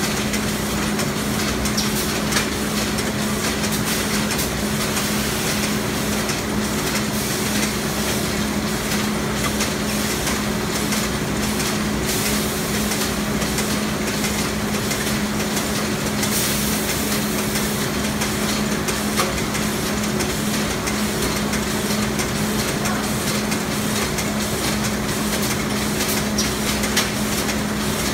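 Plastic T-shirt carrier-bag making machines running together, a steady mechanical din with a constant hum and a fine, rapid clatter of small ticks.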